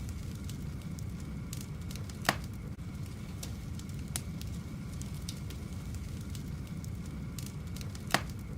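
Irregular sharp crackles and pops over a steady low rumble, with two loud pops, one about two seconds in and one near the end.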